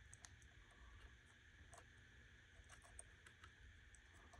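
Near silence: room tone with a few faint, scattered ticks and clicks from handling a small circuit board and solder wire while soldering.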